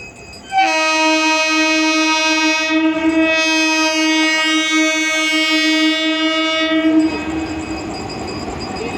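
A WAP-4E electric locomotive's horn sounds one long, steady blast of about six seconds, starting about half a second in. After the horn cuts off, the rumble of the passing train's wheels on the track grows.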